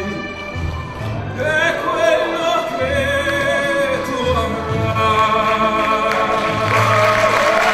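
A singer performing an Italian ballad in an operatic style over instrumental accompaniment with a rhythmic bass line. The voice comes in about a second in and grows louder from the middle on, holding and climbing to higher notes near the end.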